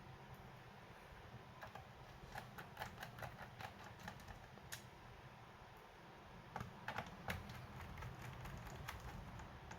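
Runs of quick, light clicks and taps from work on a laptop, in two bursts of a few seconds each.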